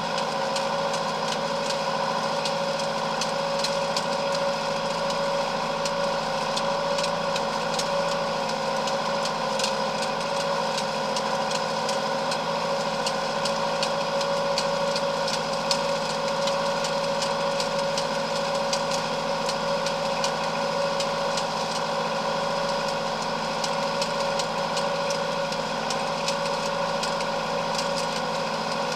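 Ford 7610 tractor's diesel engine running steadily at working speed while pulling a rake, heard close up from the bonnet beside the exhaust stack. Scattered faint ticks sit on top of the engine note.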